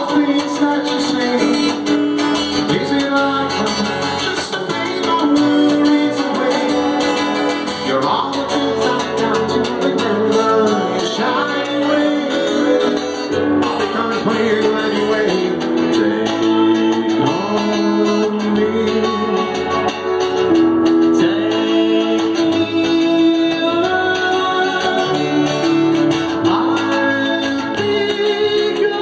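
Live band music: guitar playing with held notes, and a singing voice coming in and out.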